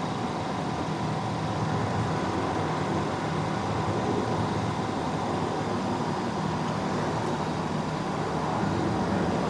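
Steady, continuous rumble of motorway traffic.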